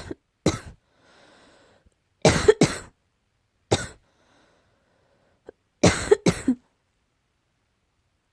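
Coughing in short bouts, about eight coughs in all: two single coughs, a quick double cough, another single, then a run of three near the end. A faint breath comes between the first bouts.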